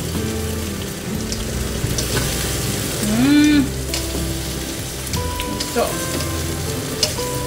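Hot food sizzling in a frying pan while metal tongs scrape and clink, lifting potatoes, sausage and onion onto a plate, over background music. About three seconds in comes a short pitched vocal note that rises and falls, the loudest moment.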